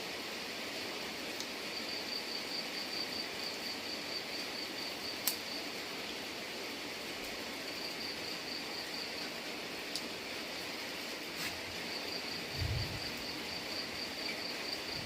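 Steady rain hiss, with an insect trilling in a high pulsing tone that starts and stops several times. There are a few sharp ticks and a brief low thump near the end.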